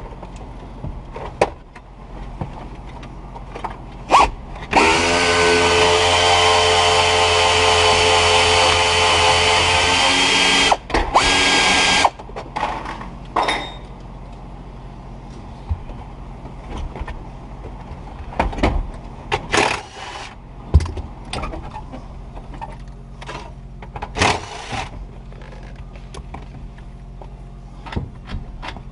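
Handheld power driver running steadily for about five seconds, then a few short bursts, amid scattered clicks and knocks of tools and dash parts being handled.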